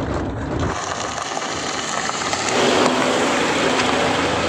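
Toyota Alphard driving over rough, broken asphalt: steady road and tyre noise, with an engine tone coming in about two and a half seconds in and dropping away near the end.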